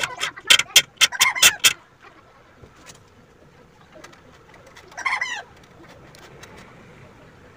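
Bird calls: a fast run of short calls, about five a second, for the first two seconds, then a single short call about five seconds in.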